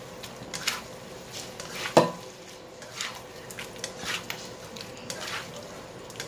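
A spatula stirring and scraping a stir-fry of prawns, luncheon meat and lotus root slices around a granite-coated wok in a string of short strokes, with one sharp knock against the pan about two seconds in.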